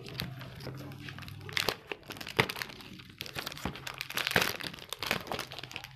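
Clear plastic shrink-wrap being torn and peeled off a phone's cardboard box, crinkling and crackling irregularly.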